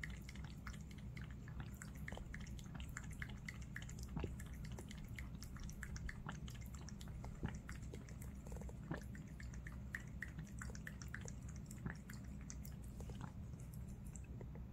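A cat lapping water from a bowl: a faint, irregular run of small quick wet clicks over a low steady hum.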